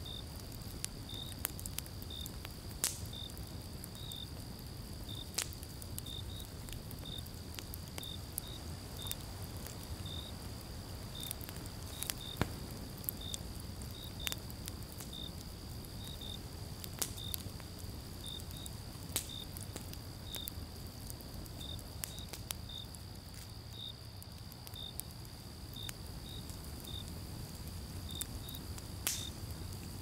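Campfire burning with a low steady rumble and scattered sharp crackles and pops of the logs, the loudest pops coming about 12 seconds in and near the end. Crickets chirp in short regular pulses, about one and a half a second, over a steady high-pitched tone.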